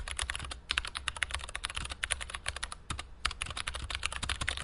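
Computer keyboard typing: a fast, uneven run of keystrokes with a couple of short pauses, over a faint low hum.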